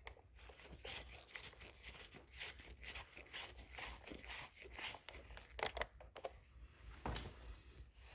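Faint screwdriver work on a motorcycle's plastic headlight cowl: a steady run of scratchy clicks and scrapes, with a few sharper knocks, as the bottom screws are driven in.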